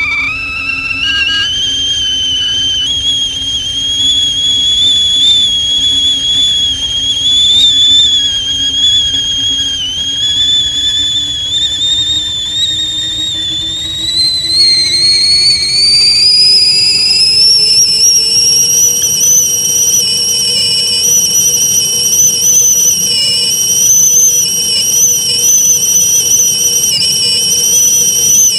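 Kettle whistling at the boil: a loud, shrill, slightly wavering whistle that climbs in pitch over several seconds about halfway through, then holds at the higher note.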